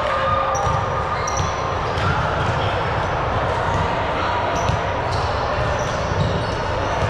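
Indoor gym game sound: a ball bouncing on the hard court floor amid echoing hall noise, with short high squeaks scattered throughout and faint distant voices.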